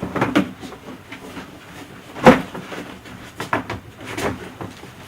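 Garbage can being handled and climbed into: a series of hollow knocks and clunks, the loudest about two seconds in.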